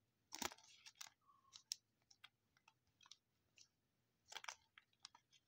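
Thin clear plastic card sleeve being handled and opened in the fingers: faint, scattered crinkles and clicks, with the loudest crackles about half a second in and again near four and a half seconds.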